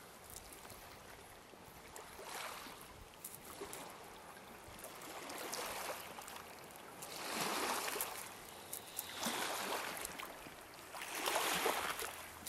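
Small waves washing onto a stony shore, swelling and fading every few seconds, with faint scattered clicks.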